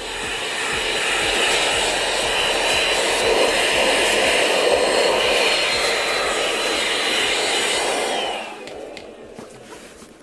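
Handheld vacuum cleaner with a crevice nozzle running at full power, a steady rush of air with a high motor whine. About eight seconds in it is switched off and the motor winds down with a falling whine.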